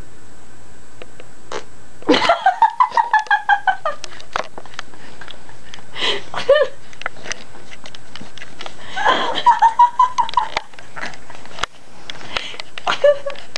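People making silly vocal noises and laughing: bursts of rapid, pulsing high-pitched sounds, about two seconds in, around six seconds and again around nine to ten seconds.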